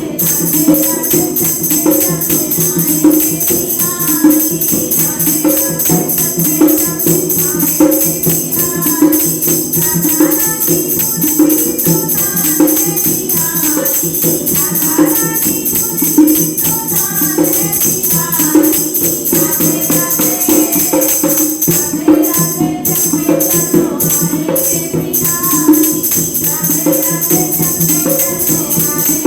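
A Krishna bhajan: voices singing over the steady jingle of a tambourine and a regular beat.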